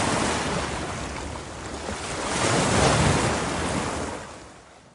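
Ocean waves washing in, swelling and subsiding twice, then fading out near the end.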